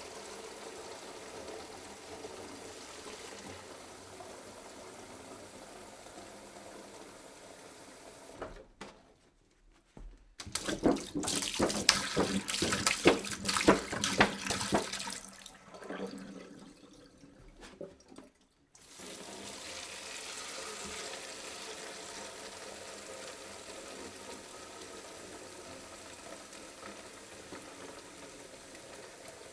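Water pouring from a jug in a steady stream. About nine seconds in it breaks off, then comes back as a louder, gurgling, splashing pour for about five seconds. After a quieter spell, a steady stream resumes at about nineteen seconds.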